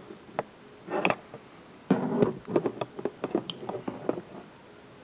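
Small metal clicks, taps and scrapes of H&K P30L pistol parts being handled and fitted into the frame by hand, irregular, with a short burst about a second in and a busier run from about two to four seconds in.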